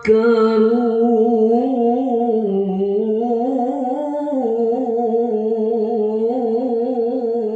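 Quran recitation in melodic tajweed style: one voice holding a single long, ornamented note with a wavering pitch. The note dips about two and a half seconds in and climbs again around four seconds.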